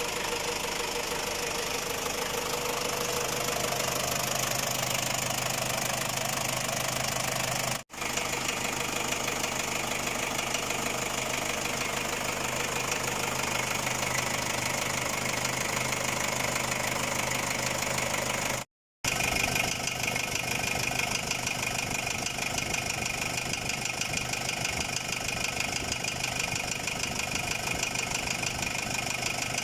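Ford Ranger's WL 2.5-litre four-cylinder diesel engine running steadily with a fast, even knock. The owner has not yet found the cause, which followed an overheat and a replacement Chinese cylinder head. The sound drops out briefly twice.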